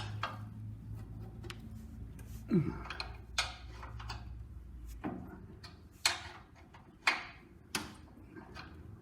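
Spanner clicking and clinking on the steel nuts and fittings under a Massey Ferguson 135 radiator as a nut is undone. A few sharp metallic clicks, each with a short ring, about one a second in the second half.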